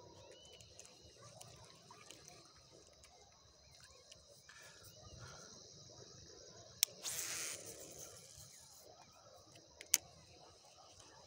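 Evening insect chorus, a steady high-pitched buzz of crickets. There are two sharp clicks, one about seven seconds in and one near the end, and a short rustle just after the first click.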